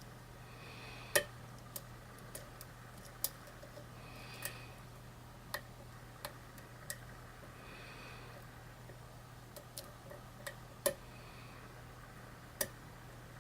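Lock pick and tension tool working the pins of a pin-tumbler challenge lock: sharp, irregularly spaced metal clicks, about a dozen, as the pins are set and reset after an overset. Soft breathing comes in every few seconds.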